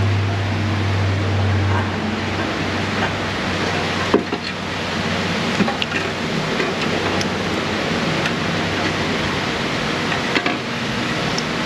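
A steady rushing hiss with a low hum for about the first two seconds, and scattered light metallic clicks and knocks of a ratchet and loose parts as the catalytic converter's exhaust nuts are worked off.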